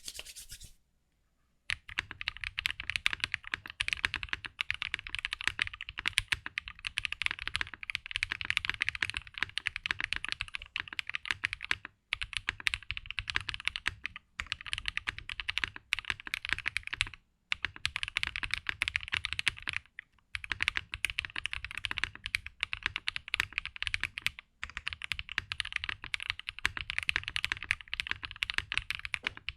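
Monsgeek M1 aluminium-cased mechanical keyboard being typed on fast and continuously, a dense run of keystrokes with a deep low end under the clicks. The typing starts about two seconds in and is broken by brief pauses every few seconds.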